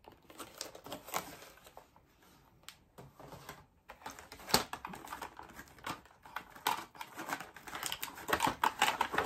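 Irregular clicks and rustles of small plastic parts and a plastic packaging tray being handled while a vlogging kit is unpacked; the clicks come thicker near the end.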